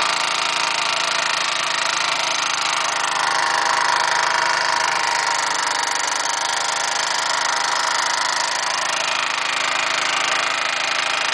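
Small gasoline lawn mower engine driving a long-tail boat drive, running steadily at a constant speed.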